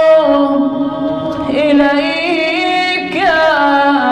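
A male reciter chanting an Arabic supplication in a slow, mournful melodic style. He draws out the syllables of "wa yatawassalu ilayk" on long held notes, with melismatic turns about a second and a half in and again near the end.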